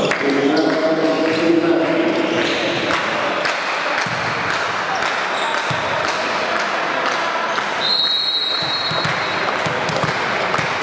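Voices of players and spectators chattering in an echoing sports hall, with a volleyball bouncing on the wooden gym floor several times. About eight seconds in a referee's whistle sounds once, held for about a second and a half.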